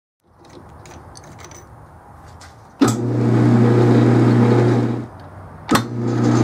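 Atlas metal lathe facing a hard steel nut with a carbide insert: a loud, steady buzzing cut with a low hum and hiss, in two passes of about two seconds each, each starting with a sharp click. Before the first pass there are only faint clicks of handling; the nut is pretty hard, but it's cuttable.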